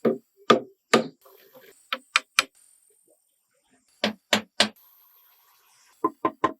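Sharp knocks of a hand tool striking wood, coming in quick runs of about three blows with short pauses between.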